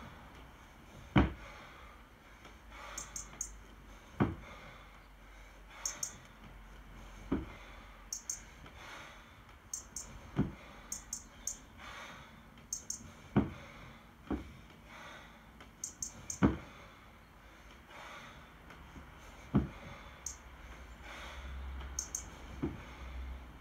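24 kg competition kettlebell being cleaned and jerked in a steady one-arm long cycle set on a wooden platform: a sharp thud about every three seconds as each rep lands, with the lifter's short, sharp breaths in between.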